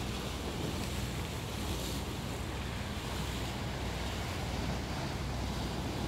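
Steady wash of sea surf against a rocky shore, mixed with the low rumble of wind on the microphone.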